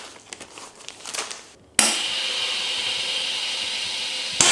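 Plastic vacuum-seal bag crinkling as meat is slipped into it, then, about two seconds in, an Avid Armor GS41 commercial chamber vacuum sealer starts suddenly on its cycle as the lid closes, its vacuum pump running with a steady whir.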